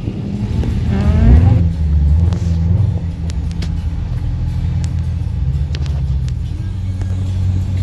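Supercharged Corvette V8 revved once about a second in, its pitch rising sharply, then idling steadily.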